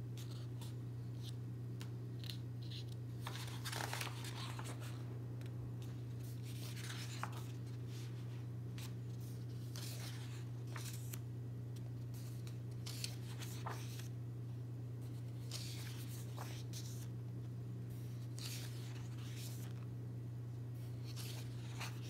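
Pages of a paperback activity book being turned by hand: a soft paper rustle and swish every few seconds, at irregular intervals, over a steady low hum.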